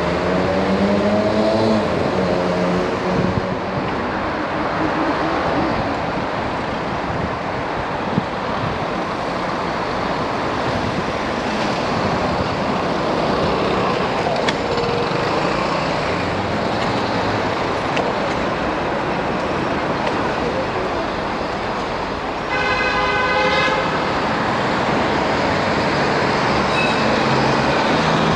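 Steady city road traffic heard from a moving bicycle: a continuous hiss of passing vehicles and wind on the microphone. An engine accelerates with rising pitch at the start, and a vehicle horn sounds once for about a second near the end.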